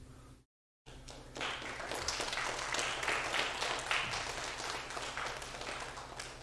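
Congregation applauding: many hands clapping in a dense patter that starts about a second in and fades toward the end. The audio drops out briefly just before it.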